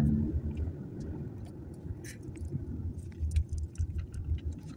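Steady low rumble of a car driving, heard from inside the cabin, with scattered light clicks and rattles.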